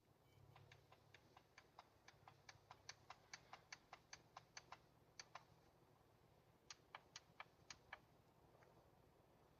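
Faint rapid clicking, about four to five clicks a second, growing a little louder, then stopping and resuming as a few scattered clicks after a pause.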